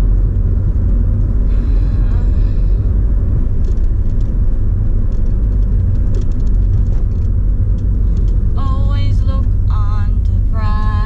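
Steady low rumble of a car on the move. A voice is heard briefly near the end.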